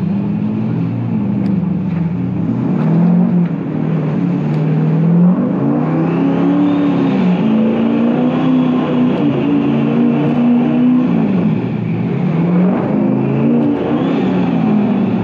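Turbocharged Hemi V8 in a stick-shift Ford F100 pickup running under throttle, its pitch climbing and dropping several times as it revs up and comes off the gas. A higher whine rises with the revs about six seconds in and again near the end.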